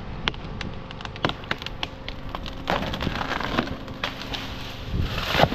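Maple tree giving way and coming down: a run of sharp wood cracks and snaps, a rush of breaking branches partway through, and the loudest crash near the end.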